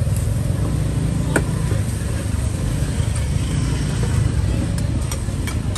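Steady low rumble of motorbike and other vehicle traffic, with a few faint clicks.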